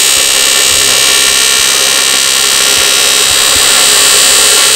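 TIG welding arc on aluminium, run on AC, giving a loud, steady buzz.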